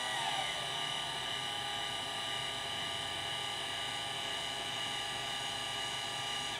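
Celestron CGX equatorial mount's motors whining steadily as the mount slews, the pitch sliding down briefly just after the start. The whine cuts off suddenly near the end as the mount halts partway through the slew, one of repeated stops it makes on the way to its target.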